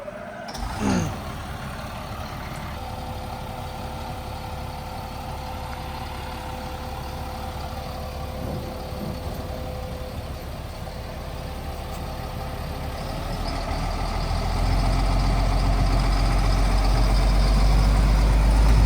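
6x6 truck engine running in six-wheel drive, with a thin steady whine over it. The engine grows louder from about two-thirds of the way through as it takes up the strain of dragging a very heavy rock on a chain.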